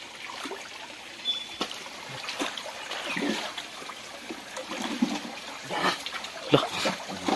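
Shallow stream water splashing and trickling as people wade and lift a fine-mesh net out of it, with scattered short sloshes.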